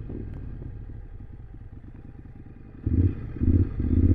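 Motorcycle engine running at low revs with an even, fast firing beat; about three seconds in the throttle is opened in several short surges, each louder than the idle.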